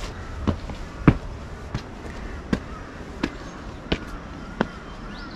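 Footsteps walking at a steady pace: about seven distinct steps, roughly one every 0.7 seconds.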